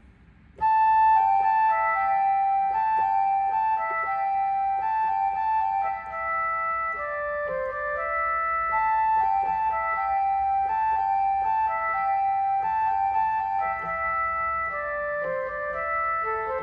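Electronic keyboard playing a melody in an organ-like voice, starting abruptly about half a second in.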